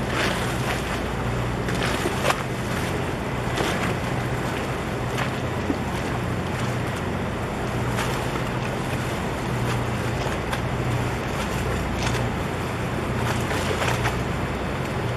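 Steady low engine drone of a boat on the harbour, under a constant wash of water and wind noise on the microphone, with a few brief sharp knocks now and then.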